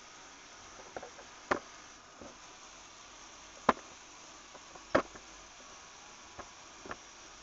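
Motor-driven Lego model fairground ride running, its mechanism giving irregular sharp clicks and knocks, three of them much louder than the rest, over a faint steady hiss.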